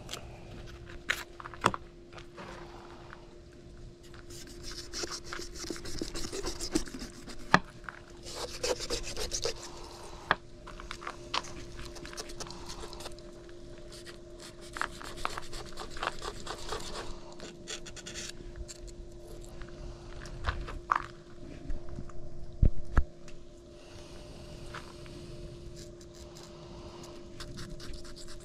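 Knife filleting a small finetooth shark: the blade scraping and rasping as it works along the fish, with a few sharp knocks in between.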